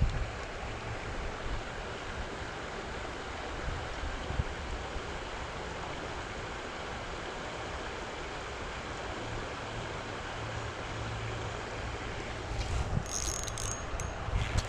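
Creek water flowing steadily, with wind buffeting the microphone as a low rumble. Near the end comes a short patch of sharper clicking and rattling.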